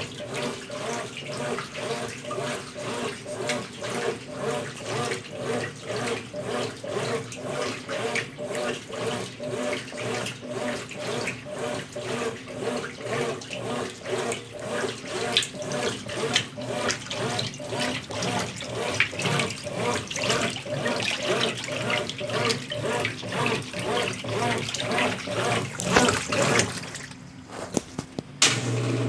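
Consul Facilite 10 kg top-loading washing machine agitating water and laundry during the rinse, a rhythmic sloshing of about two strokes a second. Near the end the agitation stops and a steady low motor hum starts.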